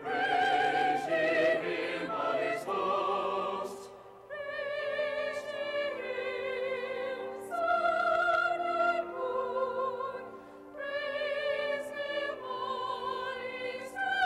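Choir and orchestra performing a sacred choral work: sung held notes with a wide vibrato over orchestral accompaniment, in phrases with brief breaks between them.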